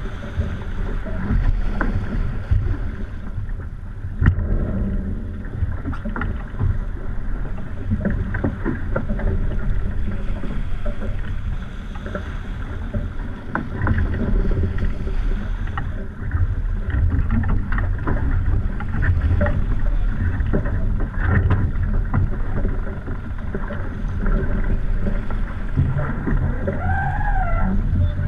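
Wind and water rushing past a racing sailboat as it sails hard, heeled over, with a steady low rumble of buffeting and scattered knocks. A brief wavering tone sounds near the end.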